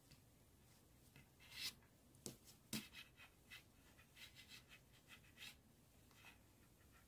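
Faint rustling and scraping of yarn and a crochet hook being worked through crocheted fabric while a yarn tail is tucked away inside the work, with a couple of small sharp clicks between two and three seconds in.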